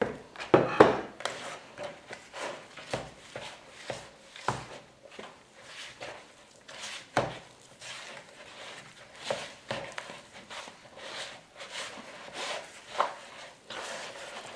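Hand kneading soft dough in a plastic mixing bowl, with flour being worked in: irregular rubbing and soft knocks, loudest about a second in.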